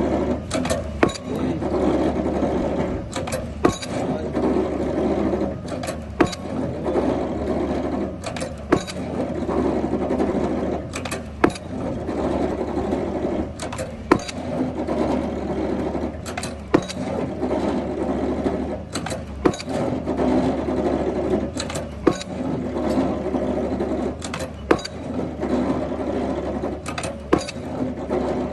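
Pile driver hammer striking the head of a pile about every two and a half seconds, many blows followed closely by a second, lighter knock, over the steady running of the rig's engine.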